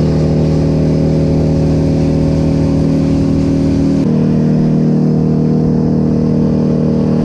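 Boat motor running steadily at speed, with a constant engine hum and noise over it; the engine note changes abruptly about four seconds in.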